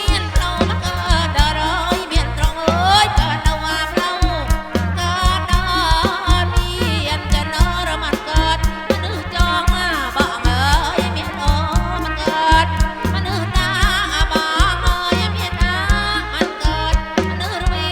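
Kantrum folk band playing live through a PA: a driving, regular drum beat and heavy bass under a wavering melody line that bends up and down.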